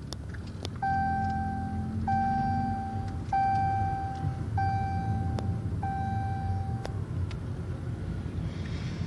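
Car cabin sound while driving slowly: a steady engine and road rumble. Over it, an electronic beeper repeats five times, each tone about a second long at the same pitch with a short gap between, then stops about seven seconds in.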